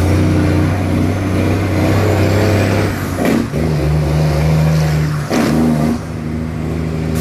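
Heavy truck's diesel engine running under load, heard from inside the cab. Twice, about three and a half and five and a half seconds in, the engine note dips briefly and changes pitch.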